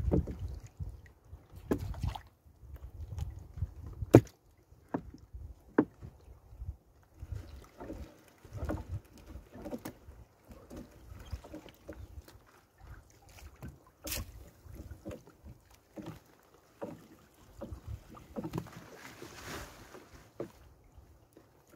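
Fishing net being hauled by hand into an outrigger boat: scattered knocks of the net and floats against the hull, with wet rustling and water splashing, a longer splash near the end.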